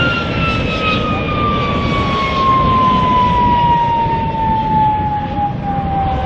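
MiG-17 jet's turbojet engine running on the runway: a loud whine that falls steadily in pitch over a heavy rumble.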